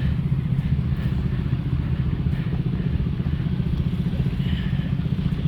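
An engine running steadily with a rapid low pulsing beat.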